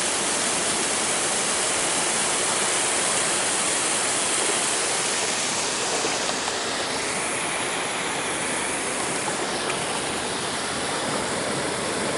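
Steady rush of a waterfall, an even hiss of falling water with no swells. The hiss softens slightly in its upper range about seven seconds in.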